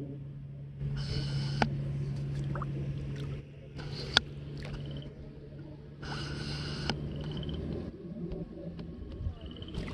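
Shallow lake water sloshing and splashing in three bursts of about a second each, as someone wades, over a low steady hum.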